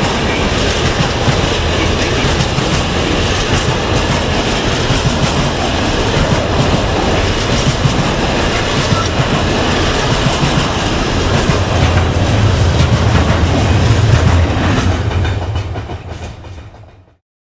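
Loaded container flat wagons of a freight train rolling past, their wheels running on the track in a steady rumble. The rumble swells a little and then fades out near the end.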